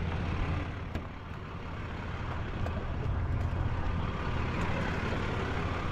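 Pickup truck engine idling steadily, a low even hum, with a few faint ticks over it.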